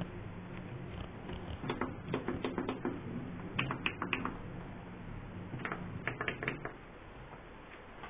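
Plastic buttons on a portable air conditioner's failed control panel being pressed, clicking in three quick runs, over a low steady hum.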